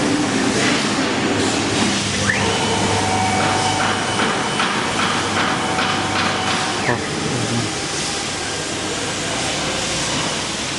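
CNC plasma cutting machine running with a steady loud hiss. About two seconds in, a whine rises in over the hiss, holds steady with a faint pulsing, and cuts off suddenly about seven seconds in.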